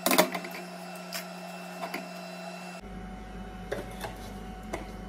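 Aluminium karahi set down on the metal grate of a gas stove with a short clatter, followed by a few light clicks. A steady low hum runs underneath and changes pitch about three seconds in.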